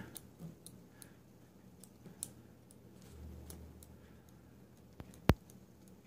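Faint, irregular clicks of a vintage W. A. Harrison insurance combination padlock's brass wheels being turned by thumb as the combination is entered, with one sharp, louder click about five seconds in.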